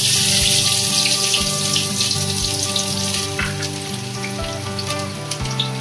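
Chopped onions dropped into hot refined oil in a kadai, setting off a sizzle that starts suddenly and gradually eases as they fry.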